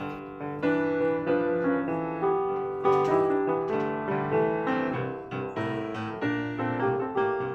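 Piano music: a melody over chords, each note struck and fading.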